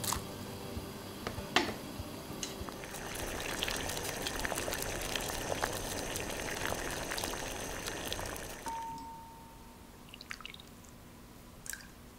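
Soybean paste soup bubbling at a rolling boil in an earthenware ttukbaegi pot, a dense run of small pops and crackles. About nine seconds in it stops, leaving a quieter background with a few light clicks.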